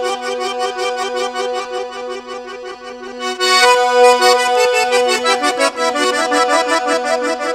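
Instrumental folk music on accordion: a quick melody of repeated notes over a held drone note.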